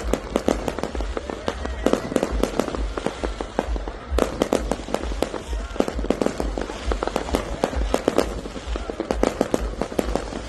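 Fireworks going off in a rapid, unbroken string of bangs and cracks, many bursts overlapping.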